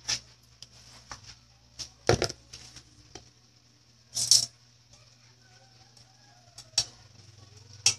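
Kitchen handling sounds: sharp clicks and knocks, the loudest about two seconds in, as a plastic stool is set down by the stove, then metal tongs clicking against a frying pan of shrimp near the end, over a faint steady sizzle from the pan.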